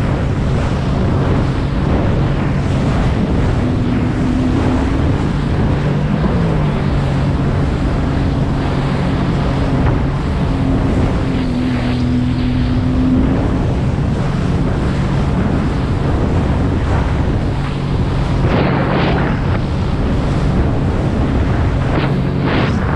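Sea-Doo GTI 130 jet ski's four-stroke Rotax 4-TEC engine running steadily under way, with water spray and wind rushing over the microphone. The engine note bends briefly about six seconds in.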